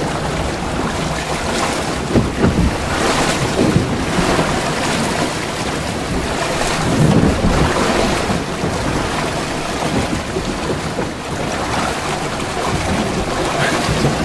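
Wind buffeting the microphone over water rushing and splashing along the hull of a heeled sailboat sailing fast through choppy waves, swelling in surges as waves hit.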